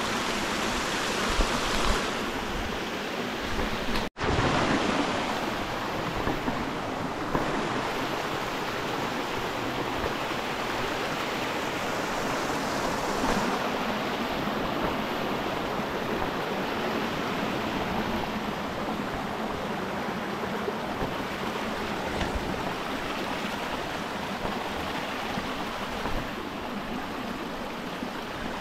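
Rushing water of a small mountain creek, a steady hiss of water running over rock. The sound briefly cuts out about four seconds in.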